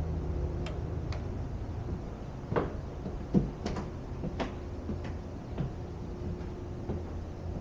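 Footsteps on a flight of entry stairs: a string of uneven taps and knocks, the loudest about halfway through.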